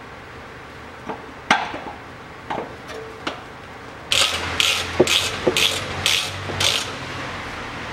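Ratchet wrench tightening a fastener, clicking in a run of about seven quick strokes a little past the middle, after a few scattered metal clicks and knocks.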